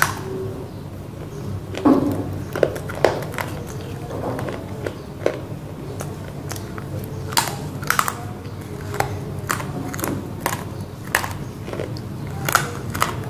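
Dry crunches and snaps of pieces of roasted black clay being bitten and chewed. There are many separate sharp crunches, irregularly spaced, over a steady low hum.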